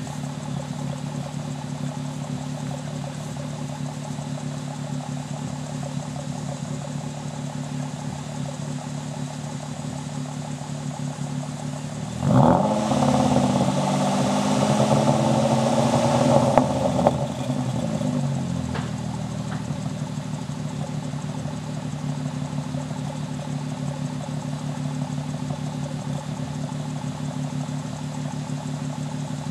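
Fourth-generation Nissan Maxima's V6 idling at the exhaust while it burns off a Sea Foam treatment. About twelve seconds in, the engine is revved sharply and held up for around five seconds, then drops back to a steady idle.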